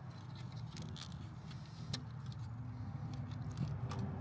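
Light, scattered metallic clinking of the old timing-chain links being drawn out and handled, over a steady low hum.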